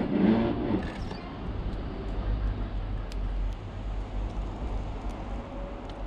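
Low steady rumble of a road vehicle, loudest through the middle, with a few faint sharp clicks over it.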